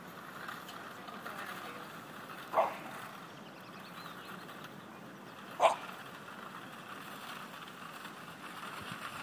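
A dog barks twice, single short barks about three seconds apart.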